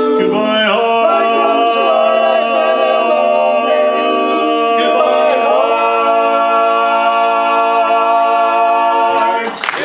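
Male a cappella quartet holding the long closing chord of a song in close harmony. The chord shifts once about halfway through and cuts off just before the end.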